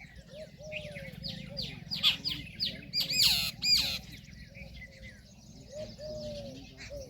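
Several birds chirping in quick, repeated falling notes, loudest and densest from about two to four seconds in, with a few lower drawn-out calls in between and a steady low hum underneath.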